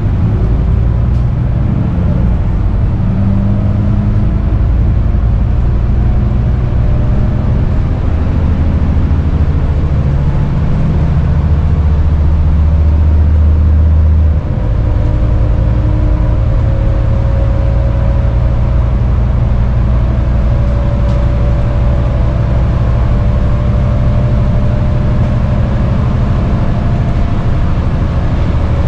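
Scania N230UD double-decker bus's five-cylinder diesel engine, heard from inside the upper deck. The engine pulls with a rising note, drops sharply about halfway through as the gearbox changes up, then runs steadily, with a faint higher whine above.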